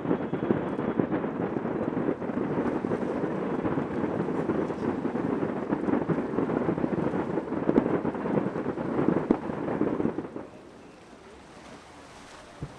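A dense fireworks barrage: many shell bursts and crackles run together into a continuous rumble. It stops abruptly about ten seconds in, leaving a faint hiss and a single pop near the end.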